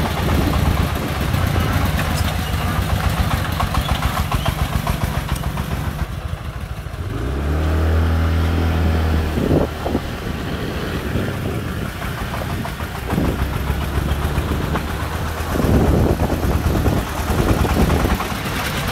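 Công nông three-wheeled farm truck's single-cylinder diesel engine running under a load of sand, a fast steady chugging. About seven seconds in an engine revs up, its note rising for a couple of seconds before settling back.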